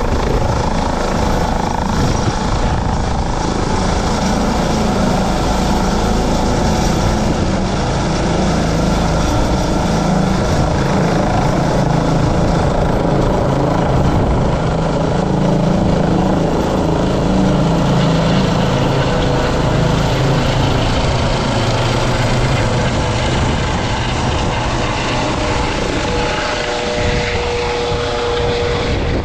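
Eurocopter EC135 P2+ twin-turbine helicopter taking off and climbing away: loud, steady rotor and turbine noise. A steady whine comes in near the end as it passes overhead.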